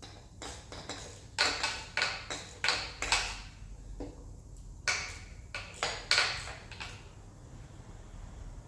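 Metal tools and engine parts clinking and knocking: a quick run of sharp, ringing strikes about a second in, and another run about five seconds in.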